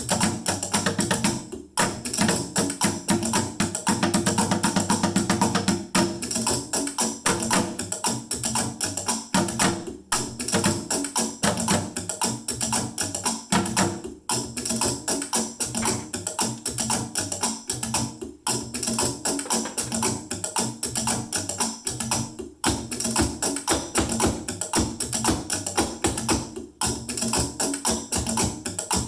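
Percussion jam played on household found objects struck with sticks: a steady, busy groove of hits and shaker-like rattles that repeats, with a short break about every four seconds.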